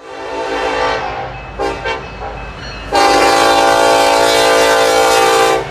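Freight locomotive air horn sounding in a playful sequence: a held note that fades, two short toots, then a loud long blast that stops abruptly near the end.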